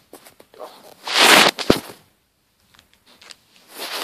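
Handling noise: a few clicks and knocks, with one short loud burst of rustling about a second in.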